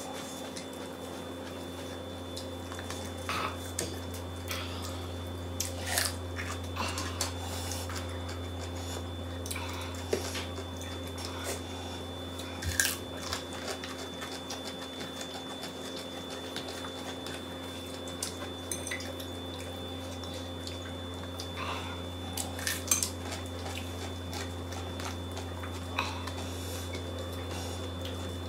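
A person eating by hand from ceramic bowls: scattered light clinks of the bowls and a spoon, with small mouth sounds, over a steady low hum.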